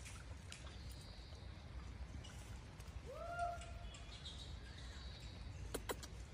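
Quiet outdoor ambience with a steady low rumble, one short animal call about three seconds in that rises and then holds its pitch, and two sharp clicks near the end.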